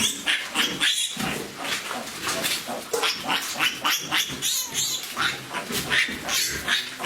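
Pigs calling in short, noisy squeals and grunts, several a second and overlapping.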